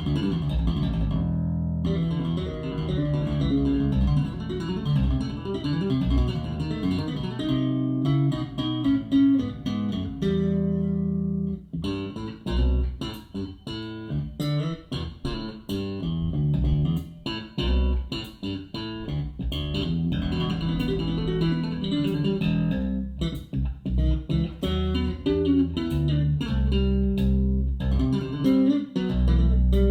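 Music with plucked guitar and a strong bass line, played through hi-fi speakers and a REL subwoofer standing directly on the floor without its isolator pad, picked up by binaural microphones in the room. The bass fills the room and sounds fuller but less tight.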